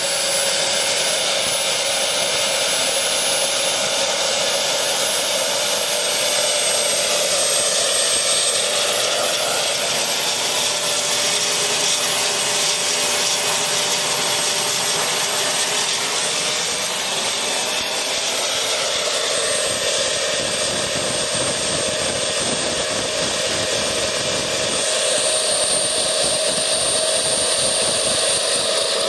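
Tiernay TT10 gas turbine engine running steadily while driving a generator under test: a loud, even rush of exhaust and air with a high whine over it. Near the end its pitch edges up slightly.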